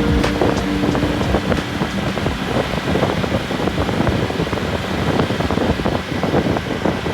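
Road noise from a moving vehicle, with wind on the microphone and many short knocks and rattles over a low rumble.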